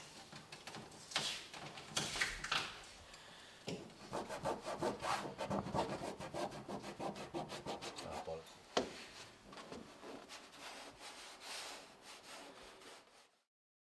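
Hands rubbing Rexine leathercloth down onto a glued panel: a few single scrapes, then a quick run of rubbing strokes, several a second, with a sharp knock about nine seconds in. The sound cuts off shortly before the end.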